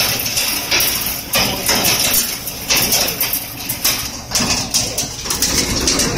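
Bone crusher machine running: a steady motor hum under irregular sharp cracks and clatters, about two or three a second, as material is crushed and fragments hit the stainless-steel chute.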